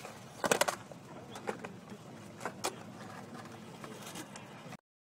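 Skateboard clattering on concrete during a trick attempt: a quick burst of sharp knocks about half a second in, then a few lighter scattered clicks. The sound cuts off abruptly near the end.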